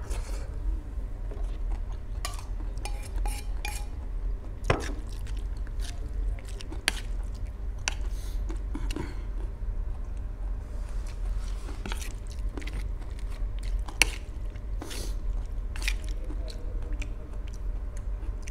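Chewing mouthfuls of instant noodles, with a metal fork clinking and scraping against a stainless steel plate. A few sharper clinks stand out, about five seconds in and again about fourteen seconds in.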